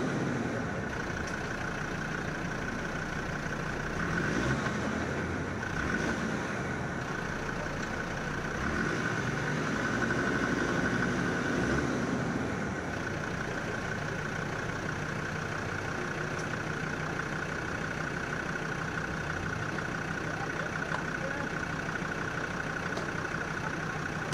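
Land Rover Defender TD5's five-cylinder turbodiesel engine idling steadily, with a few slight swells in level.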